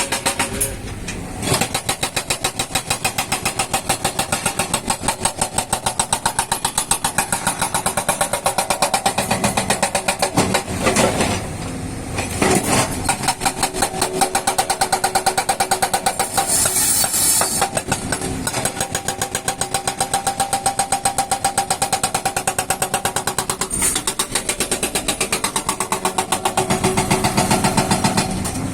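Excavator-mounted hydraulic rock breaker hammering in rapid, even blows over the running engine, with a few brief pauses.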